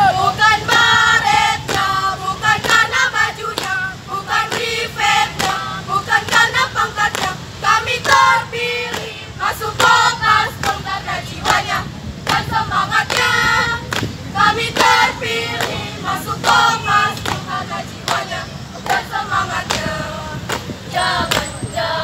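A group of girls singing and chanting together in unison, punctuated by many sharp hand claps in rhythm.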